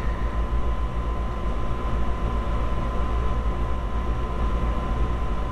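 Steady low hum and rumble with a thin, steady high tone above it, unchanging throughout.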